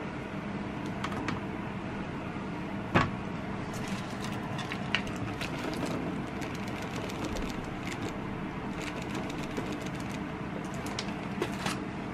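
Fruit going into a plastic colander: light clicks and knocks as grapes and blueberries tipped from a plastic punnet drop in, with one louder knock about three seconds in. A steady low mechanical hum runs underneath.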